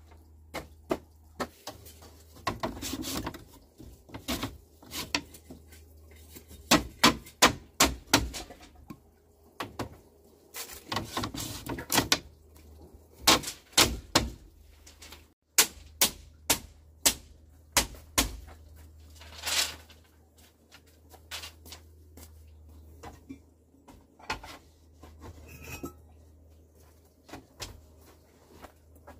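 Irregular knocks, taps and clacks of hand work, sometimes in quick runs of several strikes, over a steady low hum.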